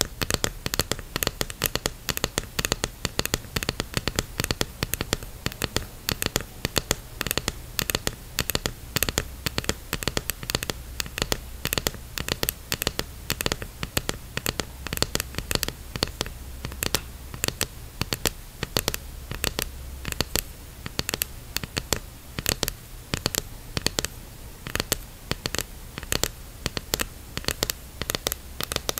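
Long fingernails tapping quickly on a clear diving mask's lenses and frame: a dense, irregular run of sharp clicks, several a second.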